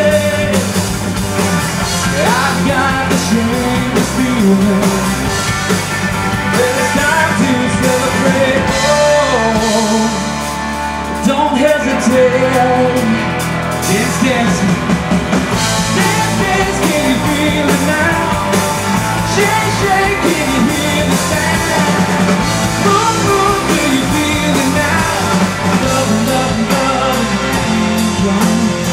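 Live pop-rock band playing with a sung lead vocal.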